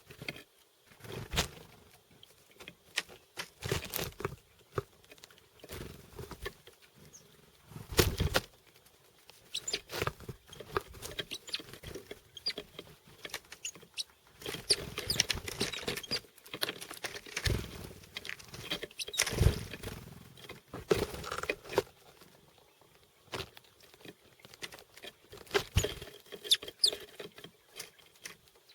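Chickadees pecking and tapping at seeds, with scuffling as they land and move about. It comes as irregular groups of sharp taps and clicks, the loudest about eight seconds in.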